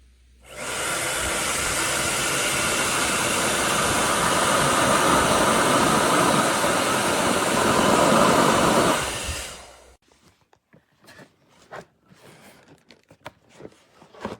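Conair handheld blow dryer switched on and running steadily for about nine seconds, then switched off. Faint clicks and handling sounds follow.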